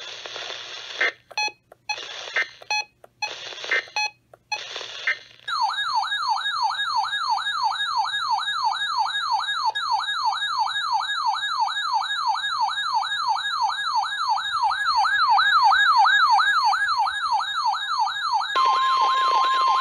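Weather radio receiving an alert: a few short buzzy bursts of SAME data tones, then the radio's alarm siren warbling up and down about three times a second. Near the end a steady 1050 Hz NWS warning tone with radio hiss comes in under the siren.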